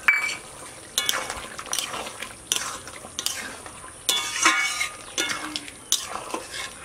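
A long metal spatula stirs a thick chicken and potato curry in a metal karahi, scraping and clinking against the pan about once a second. Some strokes leave a short metallic ring. This is the stage where freshly added garam masala paste is being stirred in.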